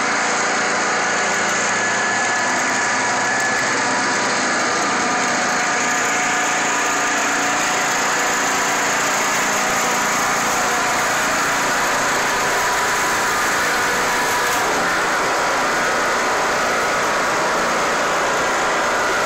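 Riding lawn mower's small engine running steadily with its throttle set on the rabbit (fast) setting.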